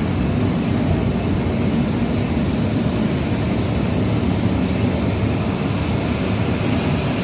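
Industrial jet dyeing machine running: a loud, steady mechanical rush with a faint high whine above it.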